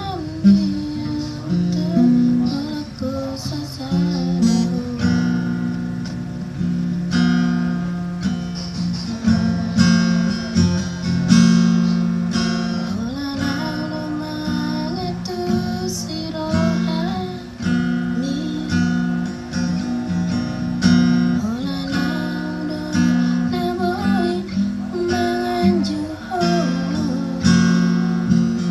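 Acoustic guitar music: strummed chords with a melody line over them, playing on steadily.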